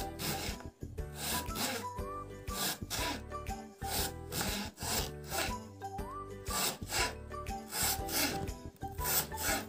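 Kitchen knife slicing a red onion on a wooden chopping board: short rasping strokes about twice a second, each ending on the board.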